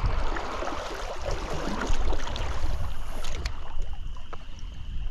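Wind rumbling on the action camera's microphone, over a small stream running.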